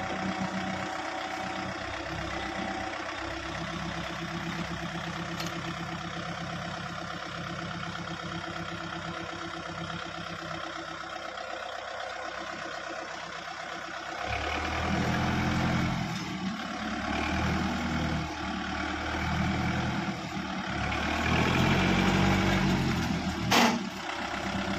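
Kubota MU4501 tractor's four-cylinder diesel engine running at a steady idle, then from about halfway louder and rising and falling as it is driven off. A sharp knock comes near the end.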